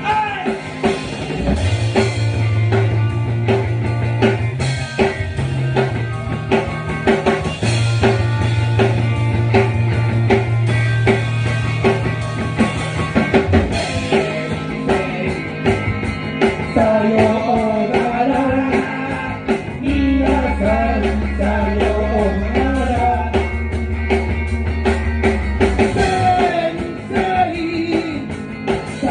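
A rock band playing live: a drum kit keeping a steady beat, electric guitar and bass holding long low notes, with a singer's voice over them.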